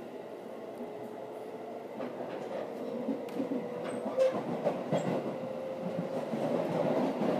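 JR Central 313 series electric train pulling away, heard from inside the carriage: a steady motor whine that rises slowly in pitch as it gathers speed. From about two seconds in, wheel clatter over rail joints and points grows louder.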